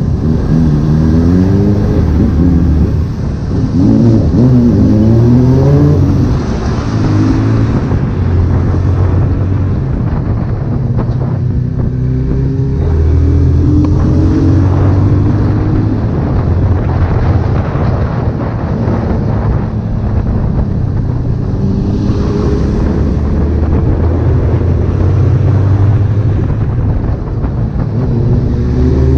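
Honda CB1000R's inline-four engine under way, revving up with a rising pitch a couple of times in the first six seconds. It then holds a steadier note through the middle and climbs again near the end.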